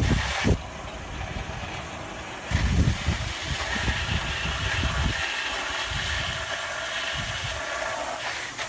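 Steady hiss of water spraying, with low thumps and knocks in the first few seconds.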